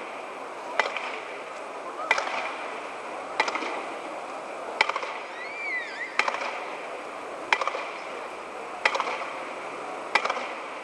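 Spring-loaded jumping stilts landing on stone paving, a sharp clack about every second and a half in a steady bouncing rhythm. A short rising-and-falling chirp sounds near the middle.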